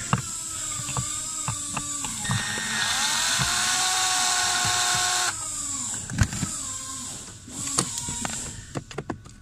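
Power drill-driver spinning out a screw: it runs slowly at first, speeds up with a rising whine about two seconds in, and stops after about five seconds. Plastic clicks and knocks follow near the end as the blower motor resistor is worked loose by hand.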